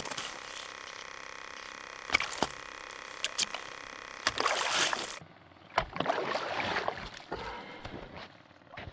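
Water sloshing and splashing in an ice-fishing hole, with scattered sharp knocks, as a northern pike is worked up to the hole on the line.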